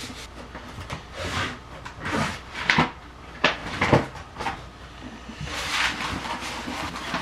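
A large rolled paper scratch map being pulled from its cardboard tube and unrolled flat on a desk: irregular paper rustling and crinkling, with a few sharper crackles between about two and a half and four seconds in.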